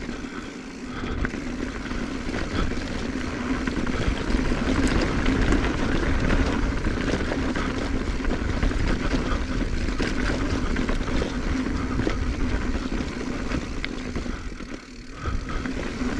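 2021 Giant Trance X 29 3 full-suspension mountain bike descending a dirt bike-park trail: a steady rolling rumble with a low hum, with many small rattles and knocks from tyres and bike over rough ground and wind on the microphone. The sound dips briefly about fifteen seconds in.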